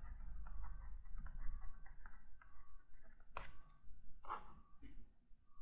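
Faint irregular scratches and taps of a stylus writing a few words on a tablet surface, then a longer stroke, over a steady low electrical hum. There are two brief louder strokes past the middle.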